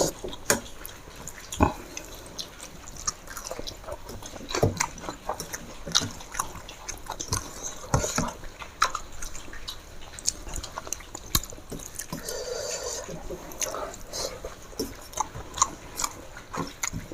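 Close-up eating sounds: irregular wet clicks and smacks of chewing a meal of chicken curry and rice.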